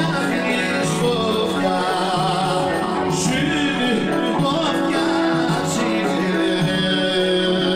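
Live Greek folk band music with singing, playing at a steady volume without a break.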